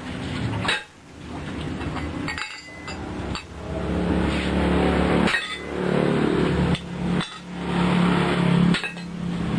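Iron being hammered at a blacksmith's forge, in runs of a second or two broken by short pauses.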